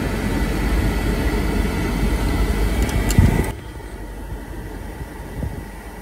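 BMW X5 E70 climate-control blower running at full speed, with a steady rush of air through the dash vents, heard inside the cabin. There is a thump about three seconds in. Just after it, the rush drops abruptly to a much quieter steady hiss.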